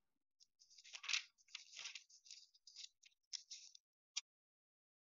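Book pages being leafed through: faint rustling and crinkling of paper in a run of short scratchy bursts, then a single click near the end.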